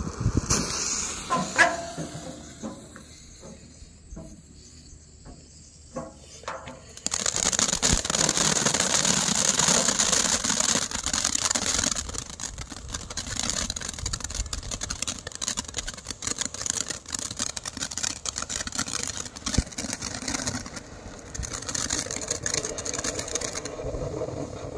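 Iron Giant firework fountain. After several quiet seconds while its fuse burns, it ignites about seven seconds in with a sudden loud hiss of spraying sparks, thick with fine crackles, that carries on steadily with small rises and falls.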